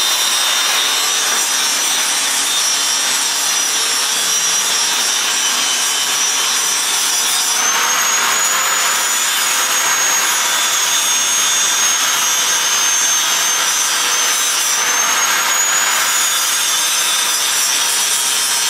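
Handheld angle grinder grinding steel, running continuously under load with a steady rasp and a high whine that shifts slightly in pitch a couple of times.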